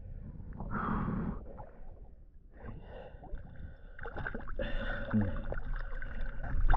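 A diver breathing hard at the water surface, with water splashing around a speared fish as it is hauled up on its line. The loudest breath comes about a second in, and the splashing picks up over the last few seconds.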